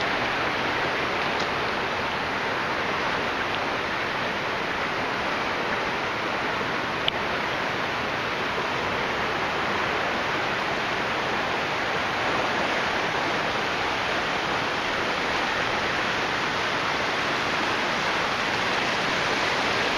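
Steady rush of fast-flowing floodwater, with one sharp click about seven seconds in.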